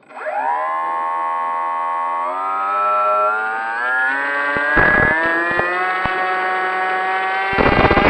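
Brushless electric motor (Turnigy 3542 1450kv with an 8x4 propeller) spinning up from rest to a steady whine, then throttled up in steps so the pitch climbs. Gusts of wind buffet the microphone about 5 seconds in and near the end.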